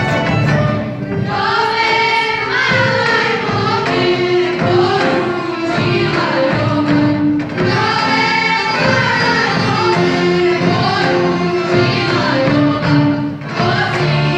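A Serbian folk song from the Gornji Visok region sung by a choir of mostly women's voices, coming in about a second in over the folk orchestra's accompaniment.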